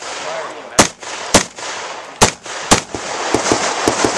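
Rifle shots at a practical shooting match: four loud shots in the first three seconds at irregular spacing, then a quicker run of fainter shots near the end.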